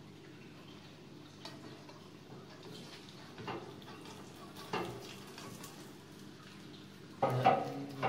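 Künefe frying in oil in a metal pan: a faint, steady crackle, broken by a few knocks and a louder clatter of metal near the end.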